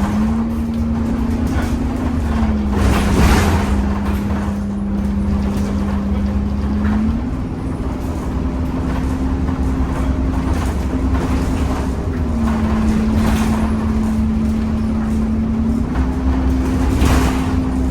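Temsa Avenue LF 12 city bus with a DAF Euro 5 engine and ZF gearbox running, carrying a steady whine that jumps abruptly between a lower and a higher pitch several times: the strange sound this bus is known for. Two louder swells of noise come about three seconds in and near the end.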